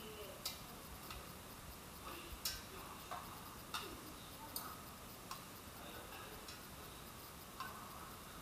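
Wire metal tongs clicking and tapping against a stainless steel bowl and an air fryer basket as fried balls are lifted out and dropped into the bowl. About eight sharp clicks come at uneven intervals.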